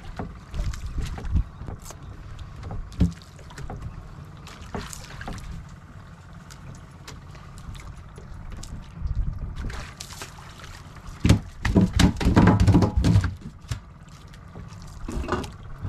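Water sloshing and splashing around a small fishing boat, with scattered knocks and a louder, rougher stretch about eleven seconds in.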